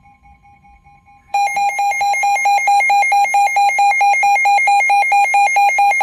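Weather-alert radio sounding its alarm for a severe thunderstorm warning: faint steady tones, then about a second in a loud, rapidly pulsing electronic beeping.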